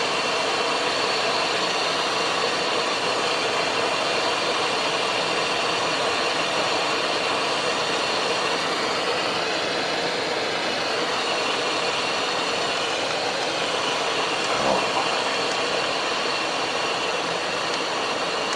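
Steady cockpit noise of a Cessna Citation XLS business jet on final approach and touchdown: rushing airflow and the hum of its twin turbofan engines, with a few steady whining tones. A short thump comes about three-quarters through.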